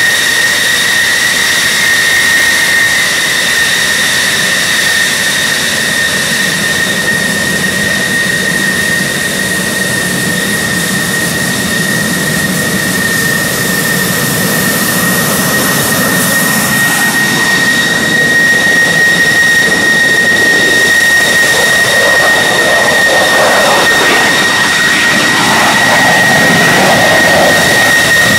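Navy fighter jets, F-14 Tomcats among them, taxiing past at low power: a loud, steady high-pitched turbine whine over a deeper rumble. The sound grows rougher and a little louder over the last several seconds as the next jet comes close.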